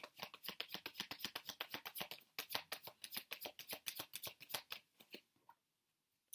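Tarot deck shuffled by hand: a fast, even run of card flicks that thins out and stops about five seconds in, followed by a few single card taps.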